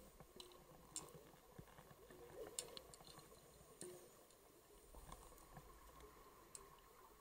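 Near silence underwater: a faint steady hum with scattered small clicks and ticks.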